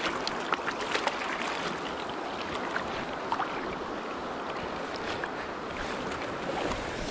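Shallow stream running steadily, with a hooked trout splashing at the surface several times in the first second or so, then a few lighter splashes.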